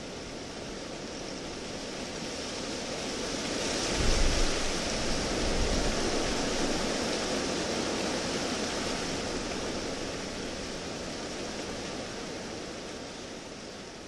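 Wind blowing in a long rushing gust that swells to its loudest about four to six seconds in, with a low rumble at the peak, then slowly dies down.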